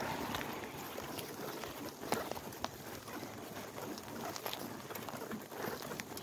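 Bicycle riding on nearly flat tyres over a gritty asphalt path: a steady rough rolling noise with scattered sharp ticks and rattles, the sharpest about two seconds in.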